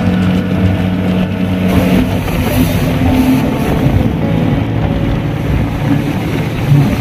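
Motorboat engine running steadily while the boat is under way.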